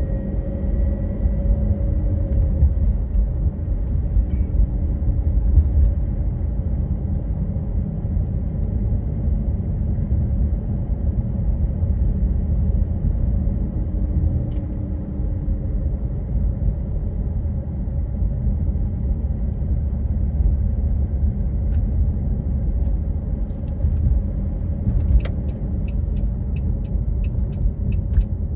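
Steady low rumble of a car on the move: engine and road noise at an even level, with a few light clicks near the end.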